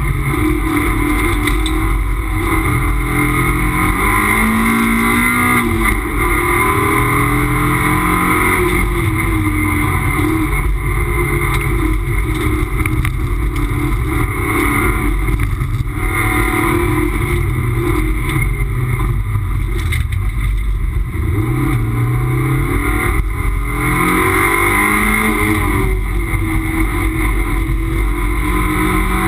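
Toyota MR2 race car's engine heard from inside the cabin at racing speed, its revs climbing and dropping again and again through gear changes and lifts for corners, over constant road and tyre noise.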